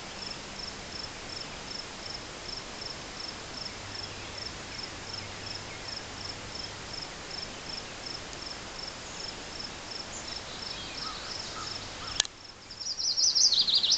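An insect chirps steadily, a high pulsing note about three times a second. Near the end, after a sharp click, a chestnut-sided warbler sings a loud burst of quick high notes that step down in pitch.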